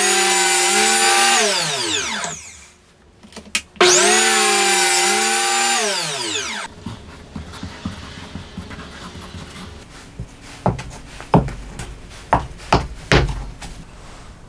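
Makita KP180DZ cordless electric planer, mounted upside down as a benchtop jointer, run twice: each time the motor and cutter head start suddenly with a high steady whine as a plywood edge is planed, then spin down with falling pitch. Afterwards, a series of light knocks of plywood strips being handled.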